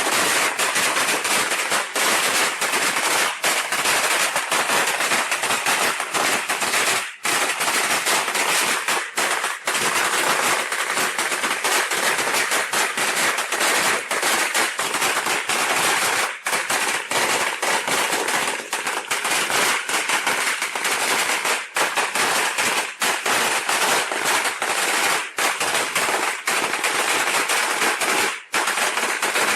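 A long string of Chinese firecrackers (biānpào) going off in a rapid, continuous crackle of bangs, with only a couple of momentary lulls.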